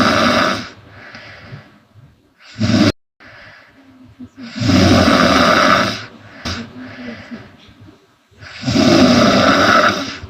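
A young woman snoring loudly in her sleep: three long snores about four seconds apart, with quieter breaths out between them and a brief, sharp snore after the first.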